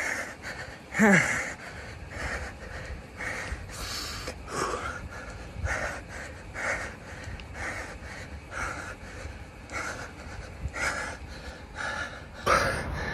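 A man panting hard, quick breaths about twice a second with a short falling groan about a second in: he is out of breath from high-intensity interval sprints on an exercise bike.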